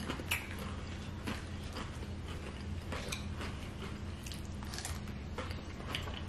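People chewing and biting into Flamin' Hot Doritos loaded nachos, with scattered short crunches over a steady low hum.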